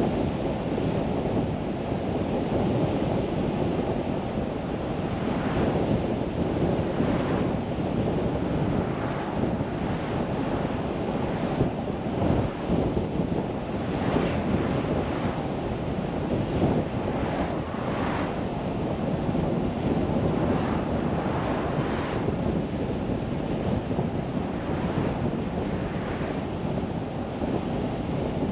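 A car driving: steady road and wind noise, mostly a low rush of tyres and air, with brief swells every second or two.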